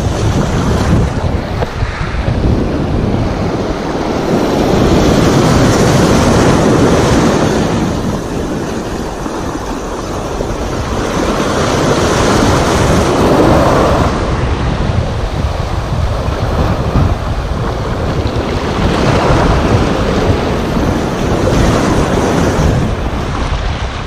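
Sea surf breaking and washing over shoreline rocks, rising and falling in slow swells several seconds apart, with wind buffeting the microphone.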